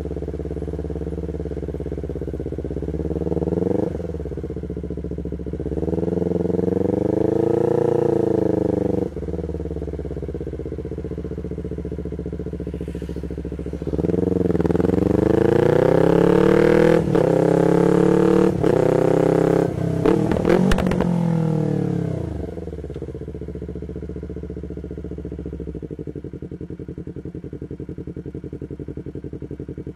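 2020 Yamaha MT-25's 250cc parallel-twin engine through an R9 full exhaust system, revving up and falling back several times under riding load. The longest and loudest run is about halfway through and ends in a few quick blips as the revs drop. The engine then settles to a steady idle for the last third.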